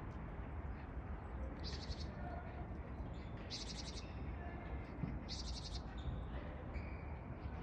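A bird calling: three short, high, buzzy trills, each under a second long and about two seconds apart, with a few faint, thin notes between them over a steady low background hum.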